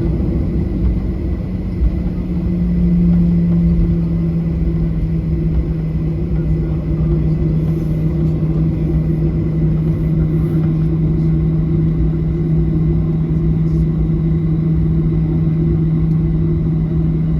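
Steady drone of a Boeing 737-800's CFM56 jet engines heard inside the cabin, a low hum over heavy rumble that swells slightly about three seconds in and then holds steady.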